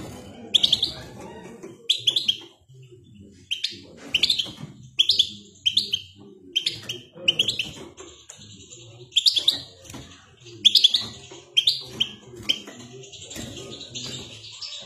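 Caged European goldfinch singing: a rapid string of short, sharp chirping notes, broken by a couple of longer twittering trills near the middle and toward the end.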